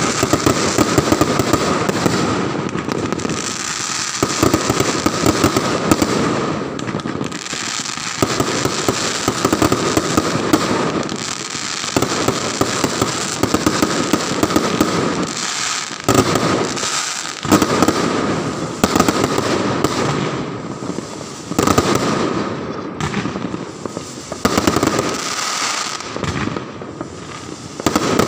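Fireworks and firecrackers going off in a continuous barrage: dense, rapid crackling and bangs that swell and ease every few seconds.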